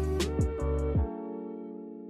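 Background music: held chords over a sliding bass line and a drum beat, with the bass and drums dropping out about a second in, leaving a held chord fading.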